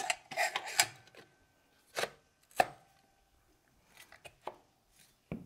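Handguard of an SSR63 airsoft rifle being slid back onto the receiver: about four sharp clacks of the parts knocking together in the first three seconds, then a few light ticks near the end.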